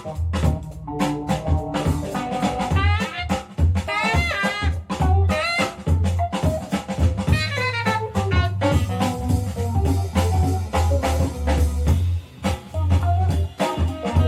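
Funk jazz music: a horn melody over a drum kit and a heavy, pulsing bass line.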